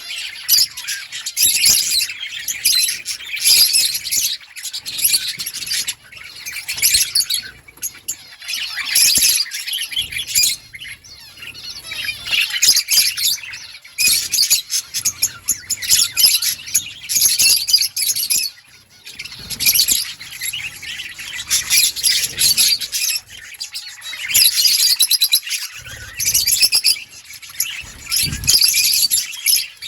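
Budgerigars chirping and warbling continuously, several birds together, in bouts a second or two long broken by short pauses.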